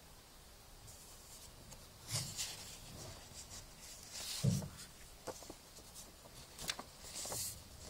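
A glossy paper flyer rustling and crackling in the hands as it is bent and opened, in several short bursts, with a soft thump about halfway through.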